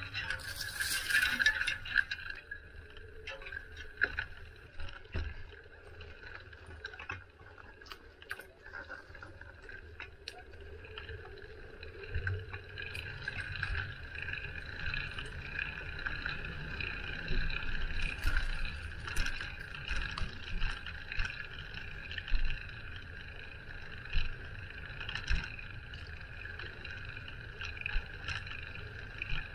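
Riding noise from a bicycle: low rumble from wind and the road, a steady high hum, and scattered knocks and clicks from bumps.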